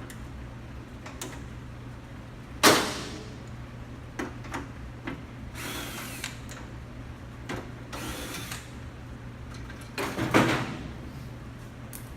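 Two brief whirs of a power tool backing out bolts inside a 1971 Mustang door, about 6 and 8 seconds in, with loud metal clanks of the loosened door hardware near the start and near the end.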